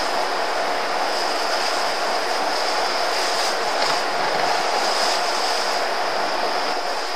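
Steady rushing noise, with no voices or sudden sounds.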